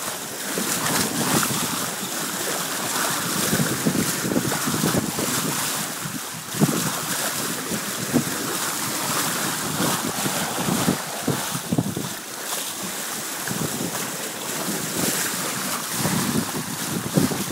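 Wind buffeting the microphone over water rushing along a sailboat's bow as it moves, swelling and easing.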